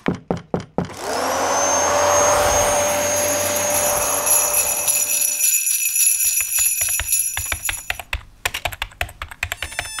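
A few sharp clicks, then a small electric motor spins up with a rising whine and runs steadily for several seconds before cutting out. Rapid clicks and taps follow near the end.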